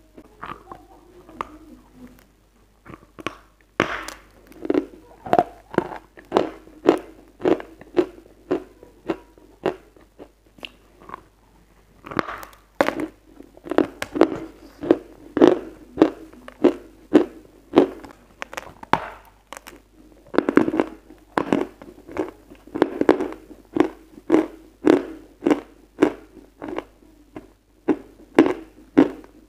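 Close-miked crunching of hard white chalk being chewed. A steady rhythm of dry crunches comes about one and a half a second, with two short pauses.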